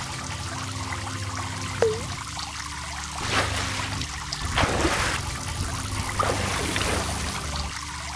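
Water trickling and pouring sound effect over a low steady drone, with a small droplet plop about two seconds in and two louder splashing swells around three and five seconds in.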